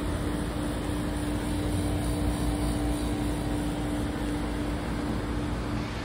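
Heat pump outdoor unit in defrost mode, its fan stopped while the compressor keeps running: a steady hum with one constant tone over a noisy rush.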